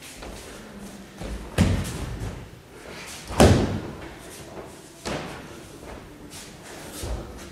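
Thuds of a body falling onto padded dojo mats as an aikido student is thrown and takes breakfalls. There are two heavy thuds about two seconds apart, the second the loudest, then lighter thumps.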